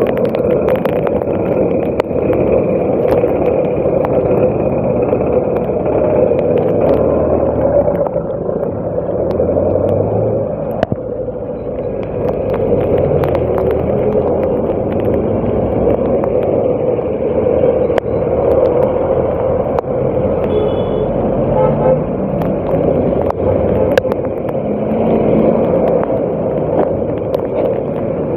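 A road vehicle on the move: steady engine and road noise with a low rumble.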